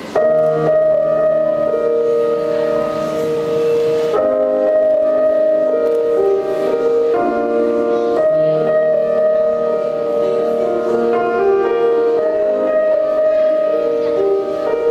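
Slow, gentle recorded music starting suddenly: held chords that change every few seconds, with no drum beat, the instrumental introduction to a song.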